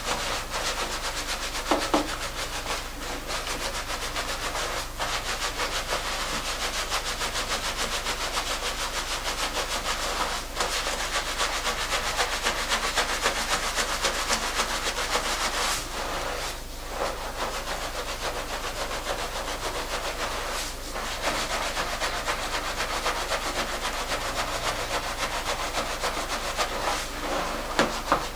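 Gloved hands scrubbing thick shampoo lather through tightly coiled 4B afro hair: a steady, fast wet rubbing of foam against hair and scalp, broken by a few brief pauses.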